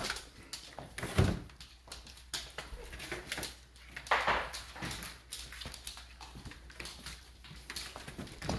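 Puppies moving about at their food: scattered small clicks and knocks, with a louder knock about a second in and a short noisy burst about four seconds in.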